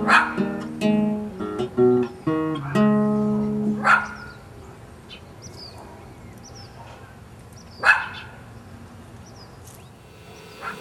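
Plucked acoustic guitar music that stops about four seconds in, then steady outdoor background noise broken by two short, sharp sounds about four seconds apart.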